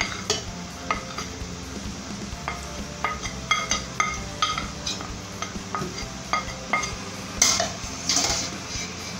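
Wooden spoon knocking and scraping chopped seasonings out of a glass bowl into an aluminium pressure cooker, giving a series of short clinks, then two louder scraping strokes near the end as the mix is stirred. A faint sizzle of the frying meat runs underneath.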